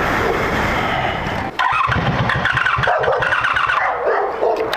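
Starter motor cranking a Honda Magna 700 V4 engine that doesn't catch, in two spells with a short break about a second and a half in. The engine is starved of fuel, which the rider blames on an overheated, failing electric fuel pump.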